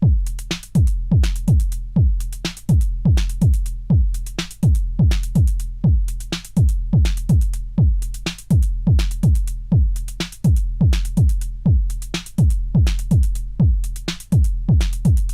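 Techno track opening on a drum-machine kick drum in a steady four-on-the-floor beat of about two hits a second. Each kick drops fast in pitch, with a crisp click on top and a steady deep bass under it.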